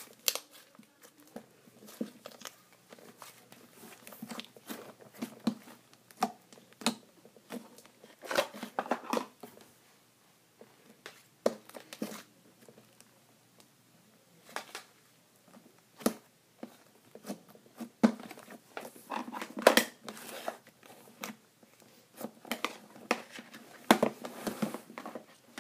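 Hands squishing and stretching a large blue clay slime: irregular sticky crackles, clicks and pops, some in quick clusters.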